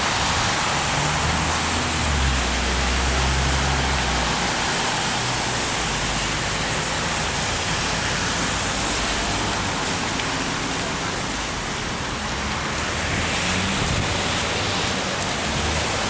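Steady, even rushing noise of the outdoors, with a stronger low rumble about two to four seconds in.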